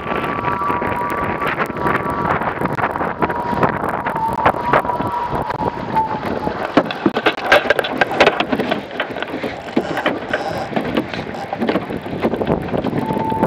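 Wind buffeting the microphone and water rushing and slapping along the hull of an A-class catamaran under sail, with a faint whistling tone that comes and goes. Sharp knocks and splashes come thickest through the middle.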